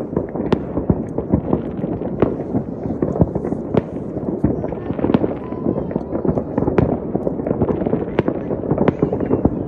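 Fireworks and firecrackers going off all around in a dense, unbroken crackle of bangs and pops, with sharper, louder cracks several times a second.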